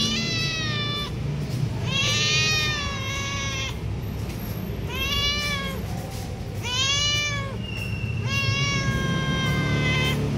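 A cat meowing again and again: about five long, drawn-out meows, each rising and then falling in pitch, with short gaps between them.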